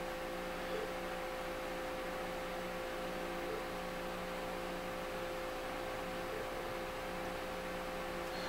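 Steady electrical hum with several constant tones over faint hiss, the room's background, with a faint tap about a second in.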